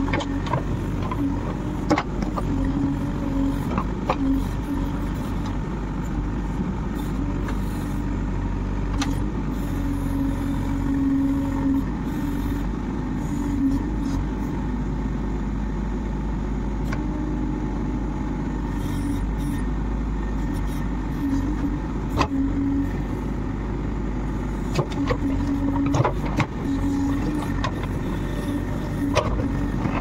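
Backhoe loader's diesel engine running steadily, with a humming tone that swells and fades every few seconds as it works, and scattered knocks and clanks.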